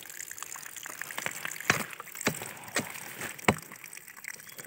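Water trickling out of the base of a tree trunk, a faint steady hiss, with several sharp clicks scattered through it.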